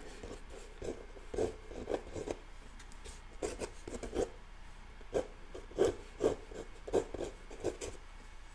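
Pencil sketching on Arches 140-pound watercolour paper: a quick, irregular series of short, light scratchy strokes as palm-frond shapes are drawn in.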